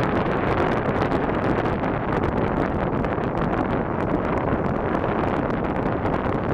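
Wind buffeting the camera microphone: a steady, loud noise with frequent small crackles.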